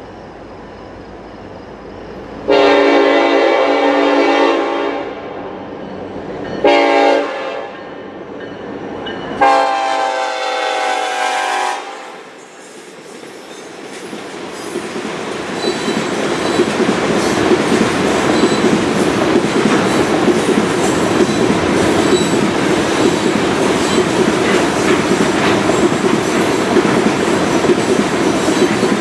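Norfolk Southern freight locomotive's air horn sounding three blasts, long, short, long. The train then comes up and passes close by, a steady rumble with clickety-clack of wheels over rail joints that grows louder and holds.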